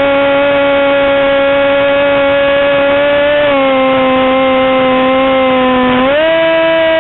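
Small model aircraft engine running at high speed with a steady whine. Its pitch eases down slightly about halfway through and climbs again near the end as the throttle changes.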